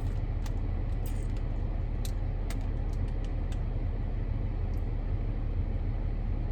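Steady low rumble of a car's air conditioning and idling engine heard inside the cabin, with a few faint clicks.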